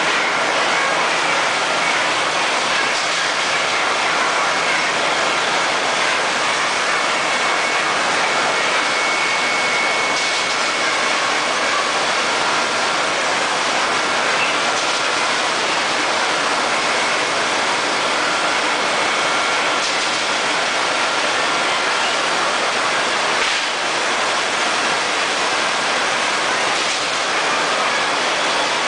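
Industrial cage-washing machine running: a steady, loud rushing noise with faint high whining tones over it.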